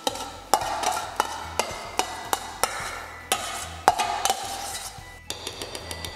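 Metal spoon scraping and knocking against a stainless steel bowl as diced bacon is tipped out into a glass mixing bowl. It gives sharp clicks and knocks about every half second, then a quicker run of ringing taps near the end.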